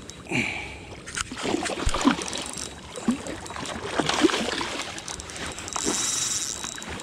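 Water sloshing and splashing, with irregular knocks and splashes.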